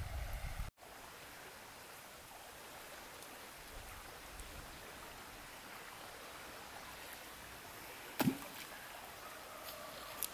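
Faint steady riverside ambience, broken about eight seconds in by a single sharp plop with a falling tail as the baited line from a bamboo fishing pole lands in the water. A brief dropout just under a second in marks an edit.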